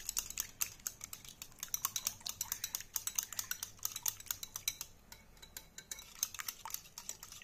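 Metal wire whisk beating raw eggs and spices in a glass bowl: rapid, steady clicking of the wires against the glass.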